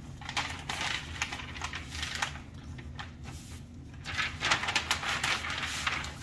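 Butcher paper rustling and crinkling under gloved hands as it is handled, in two spells of irregular crackly noise with small clicks. The first spell is near the start and the second comes from about four seconds in.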